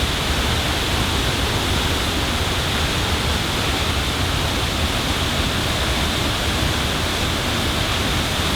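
Steady road and tyre rumble heard inside a Nissan Altima sedan's cabin while it drives a potholed road.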